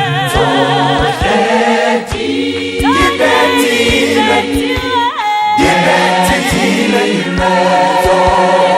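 Vocal group singing a song in several-part harmony, with held notes and vibrato, over a steady beat of sharp percussive hits.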